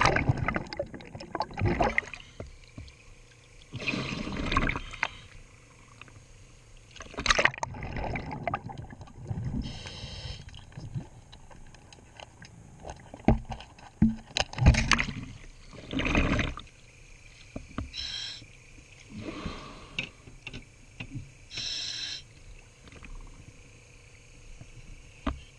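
Underwater scuba breathing: a diver's regulator hissing on each breath in and exhaled bubbles bursting out every few seconds, irregularly, with scattered clicks and knocks of work on the propeller.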